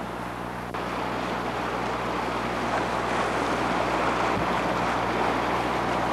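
Rushing water of a river rapid, a steady noise that gets louder about a second in, over a low steady hum.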